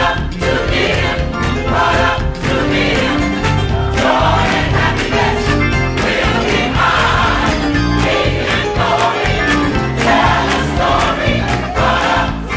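Gospel choir singing a chorus with piano accompaniment over a steady beat.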